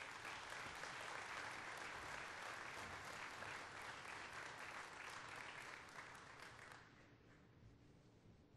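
Audience applauding, which dies away about seven seconds in.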